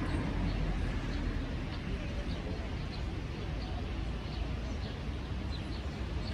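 Small birds chirping repeatedly, short high chirps about once or twice a second, over a steady low outdoor rumble.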